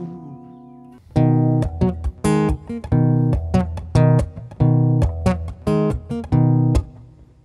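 Acoustic guitar: a held chord rings out and fades, then about a second in chords are strummed in a rhythmic pattern with short breaks, fading away near the end.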